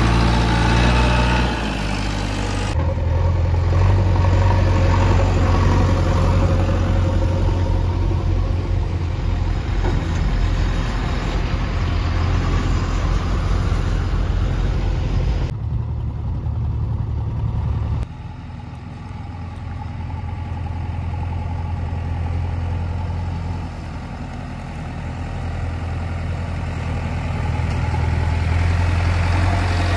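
Diesel engines of a JCB 3DX backhoe loader and Tata tipper trucks running at a steady low hum, the sound changing abruptly a few times.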